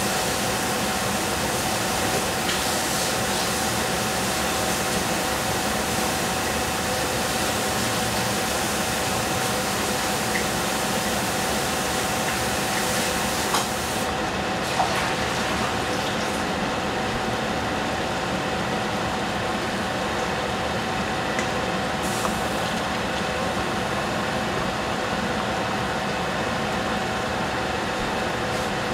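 Meat frying in an enamelled cast-iron pot on a gas stove: a steady sizzling hiss with a faint steady hum underneath, and a couple of light knocks about halfway through.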